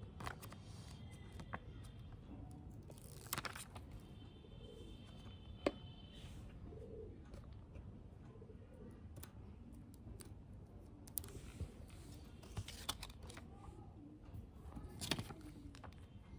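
Small plastic toy pieces and packaging being handled: scattered light clicks and taps, one sharper click about five and a half seconds in, and a few short crinkly rustles.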